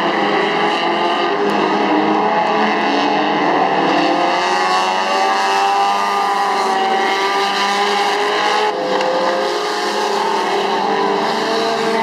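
Several IMCA Sport Compact race cars' four-cylinder engines running together, their pitches rising and falling as the cars accelerate and lift around the oval.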